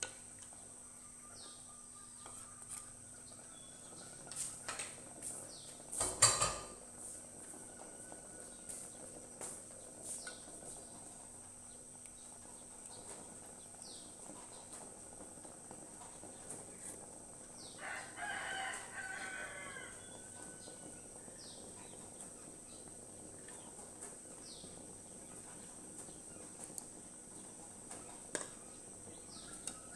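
A rooster crowing, with a drawn-out crow at the start and one clear crow about eighteen seconds in; small birds give short chirps now and then. A sharp knock about six seconds in is the loudest sound.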